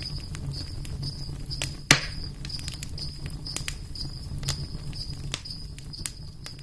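Insects chirping in a high, pulsing trill, with scattered sharp clicks and one loud crack about two seconds in.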